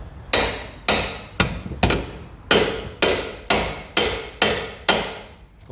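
Hammer blows on the two arms of a car's steering knuckle, about ten strikes at roughly two a second, each with a short metallic ring, to knock free the stuck pinch bolt that holds the steering ball joint.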